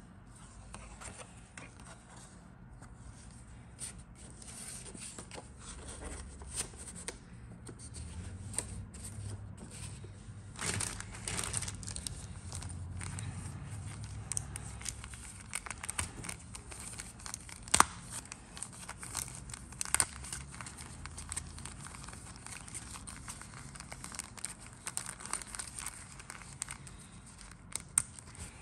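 Thin clear plastic bags crinkling and crackling as hands handle them and work one open, with a few sharper snaps of the plastic past the middle.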